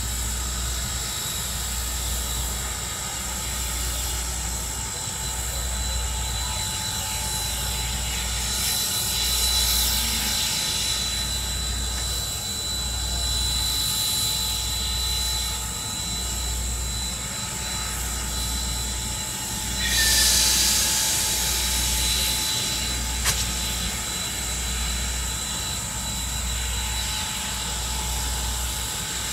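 Steam locomotive working slowly under heavy load, its exhaust beating about once a second. There is a brief loud hiss about two-thirds of the way through.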